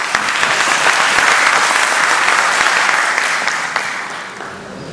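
Audience applauding, many hands clapping together; the clapping dies away near the end.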